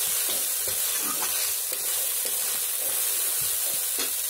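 Rice frying and sizzling in oil in a wok, stirred with a metal spatula that scrapes and knocks against the pan at irregular moments over a steady hiss.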